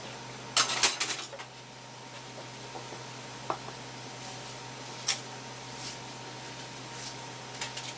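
Crushed ice being handled on a wooden cutting board and scooped by hand into a small ceramic bowl: a short burst of crunching about a second in, then a few light, scattered clicks of ice.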